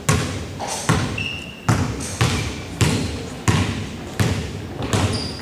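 Basketball being dribbled on a hardwood gym floor: a steady series of bounces, roughly one every two-thirds of a second, each ringing on in the gym's echo.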